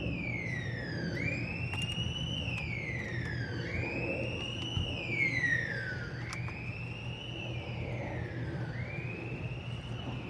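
Emergency vehicle siren in a wail pattern: each cycle rises quickly, then falls slowly over about two and a half seconds, repeating steadily. A low steady hum runs underneath.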